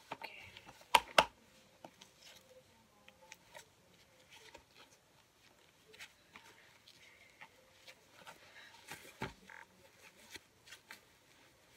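Light rustling and small clicks of a plastic baby doll and its clothes being handled, with two sharp clicks close together about a second in and a softer knock later on.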